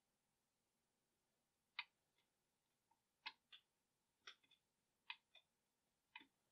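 About half a dozen faint, irregular small clicks and taps of metal tweezers and small parts against a 1:18 scale diecast model car body, over near silence.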